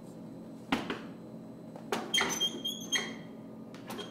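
Clunks and knocks from a snack vending machine, three sharp ones about a second apart. After the second comes a brief squeaky, metallic rattle.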